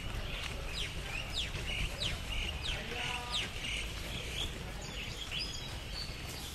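A bird calling: a string of quick, sharply falling high-pitched notes, each about half a second apart, in the first half. Under it runs a steady low rumble.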